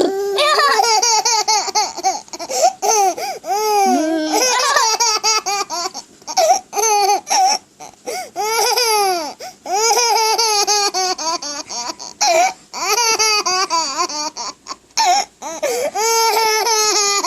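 High-pitched laughter going on in long runs of quick rising-and-falling bursts, broken by short pauses.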